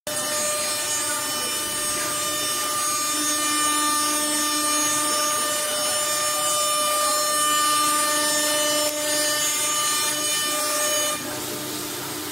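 CNC router spindle milling a metal plate: a steady whine made of several held tones over the hiss of the cut. About eleven seconds in the whine stops and the sound drops.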